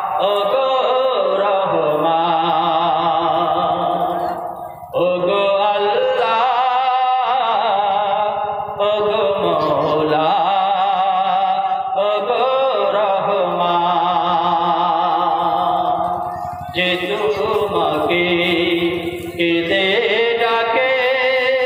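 A man's voice chanting in a sung, melodic style: long held notes with wavering ornaments, in phrases of a few seconds with short breaks between them, in the manner of a waz preacher's recitation.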